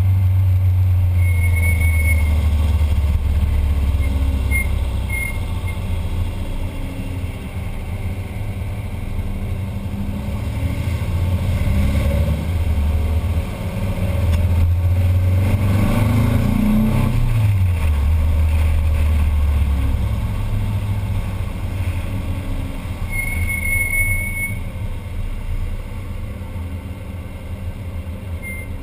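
Air-cooled flat-four engine of a VW Type 2 bay-window bus running on the road, its pitch dipping and climbing as the speed changes, with a clear fall in revs about halfway through. Short high squeals from the bus's squeaky brakes cut in a few times near the start and once more late on.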